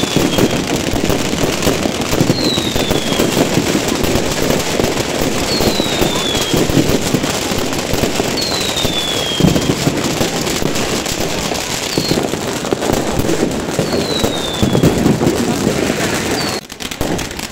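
Fireworks and firecrackers going off at close range: a dense, continuous crackle of many small bangs, with a short whistle falling in pitch every two to three seconds.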